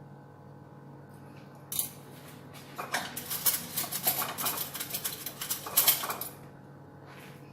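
Kitchen handling noise: a single clink about two seconds in, then about three and a half seconds of dense clattering and rustling, loudest near the end, over a faint steady hum.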